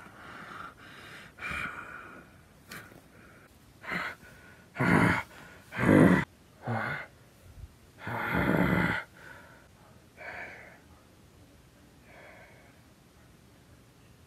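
A person breathing hard and gasping close to the microphone: a run of short, loud breaths about a second apart in the middle, the longest one near the end of the run, then fading to faint breathing.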